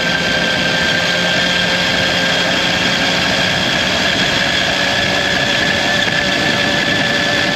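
Mini bike coasting with its engine switched off: rushing wind over the microphone and a steady whine that rises slightly in pitch as speed builds.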